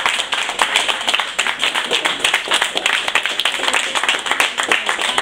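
A small group of people clapping their hands in applause, many claps overlapping.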